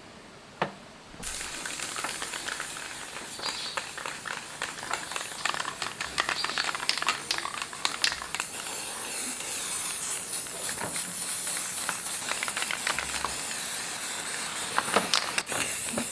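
Aerosol spray-paint can hissing as it coats diesel engine parts. The hiss starts about a second in and runs nearly unbroken, with scattered light clicks and knocks.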